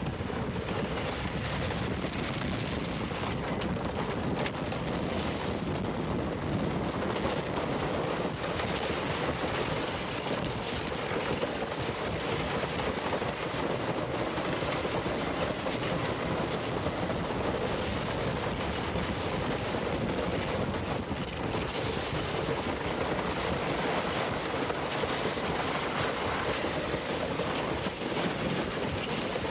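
Timber Wolf wooden roller coaster train running along its wooden track: a steady rumble and rattle of the wheels, mixed with wind on the microphone.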